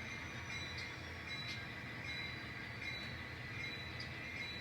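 N scale model train running slowly on the layout, shoving cars: a faint steady running sound with a thin high tone above it.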